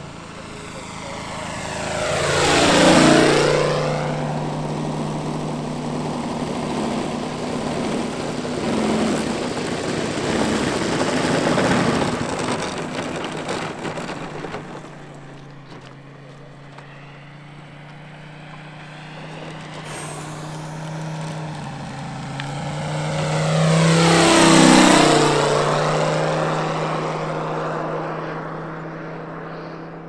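Moki 250 five-cylinder radial engine of a large-scale RC Lavochkin La-7 warbird running at speed in flight. It makes two low passes, about three seconds in and again near the end. Each pass swells to its loudest and then drops in pitch as the plane goes by.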